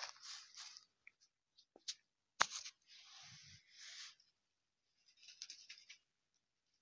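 Dry olive sprigs rustling as they are laid by hand on a tray of olives, in short crisp patches, with one sharp click about two and a half seconds in.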